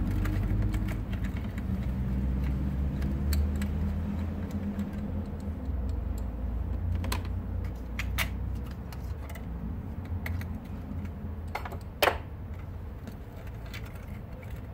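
Scattered small metallic clicks and clinks as the valve cover's remaining nuts and hold-down plates are undone and handled, the sharpest clink about twelve seconds in. A steady low rumble runs underneath.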